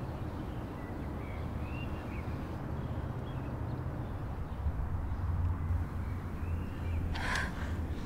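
Outdoor ambience: a steady low rumble with faint bird calls, and a crow cawing once about seven seconds in.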